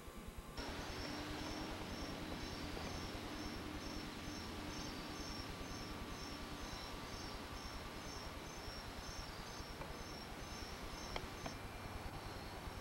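Crickets chirping in a steady rhythm, about two chirps a second, over a steady background hiss.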